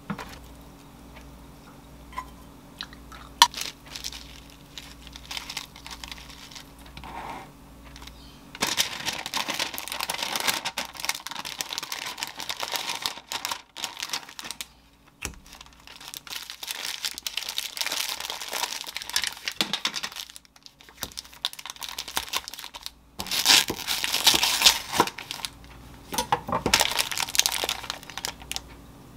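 Parchment paper crinkling and rustling as a sandwich is folded and wrapped in it by hand. The crinkling comes in long stretches with short pauses, after a few light taps and clicks at first, and grows into louder crackling bursts a few seconds before the end.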